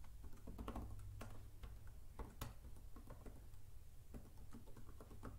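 Faint computer keyboard typing: irregular, scattered keystroke clicks.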